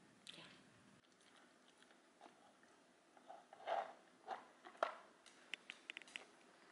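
A dog eating dry kibble from a bowl, with faint crunching and chewing and a few louder knocks in the middle. Near the end comes a quick run of small sharp clicks as it picks up the bowl in its mouth.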